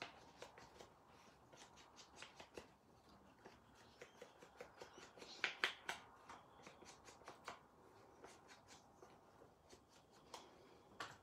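Faint taps, scratches and rustles of hand papercraft work: an ink blending tool dabbed and rubbed around the edges of a card. A cluster of sharper taps comes about halfway through.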